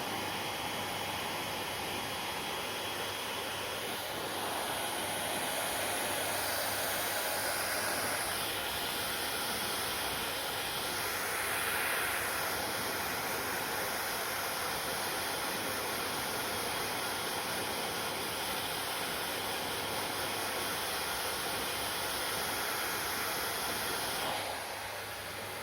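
Hair dryer blowing steadily, a rushing of air over a low motor hum, its tone shifting a few times and the level dropping near the end.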